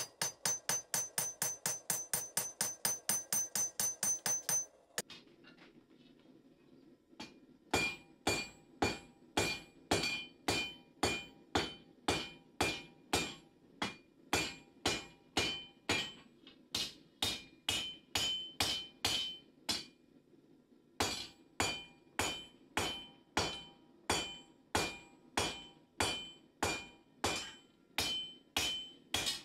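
Hand hammer striking hot steel on a round steel anvil while forging a knife blade, each blow ringing. A fast run of blows, about five a second, stops about five seconds in. After a short pause, steady blows come about two a second, with a brief break near the middle.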